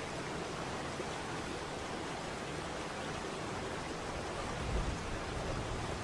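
Steady rush of falling water from a waterfall, an even roar without pauses. A brief low rumble rises under it about five seconds in.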